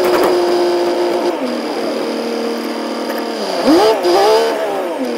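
Music: a long held note drops to a lower held note about a second in, then a melodic line slides up and down in short swoops near the end.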